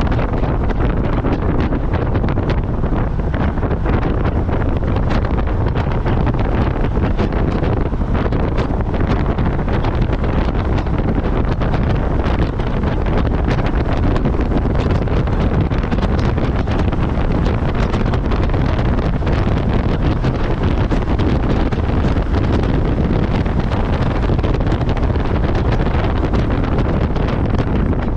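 Steady heavy wind buffeting on the microphone in a 2019 Mazda MX-5 Miata driving at track speed with its top down, with the car's engine and road noise running underneath.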